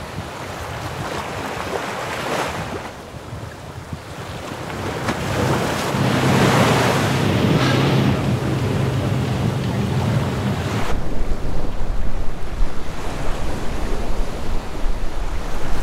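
Wind blowing over the microphone with the sea around the boat; the wind buffeting turns heavier and gustier about two-thirds of the way through.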